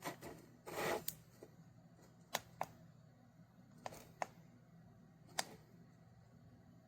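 A few sharp clicks and light taps spaced irregularly, with a short rustle about a second in, over a faint low hum.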